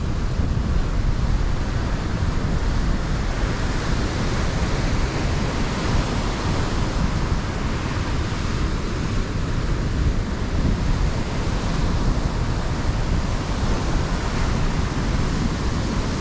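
Ocean surf washing steadily onto a sandy beach, with wind buffeting the microphone and adding a low rumble.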